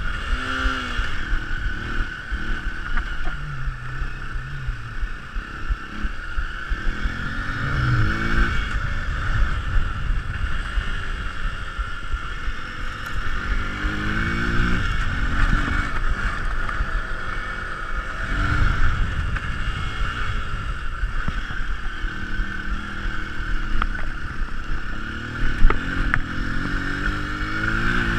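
Single-cylinder dual-sport motorcycle ridden hard on a dirt track, its engine revving up and easing off again and again as the rider accelerates and shifts, with rattles from the bike over the rough ground. A single sharp knock, the loudest sound, comes near the end.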